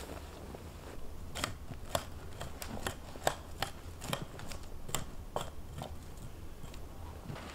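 A series of about a dozen sharp snaps and clicks, two or three a second for about four seconds, as small branches are trimmed from a long wooden pole by hand.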